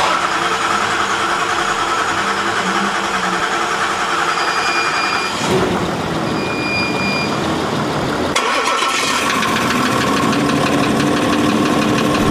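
The rebuilt Land Rover Discovery 4 diesel engine running. Near the middle there are two short high-pitched tones, each about a second long.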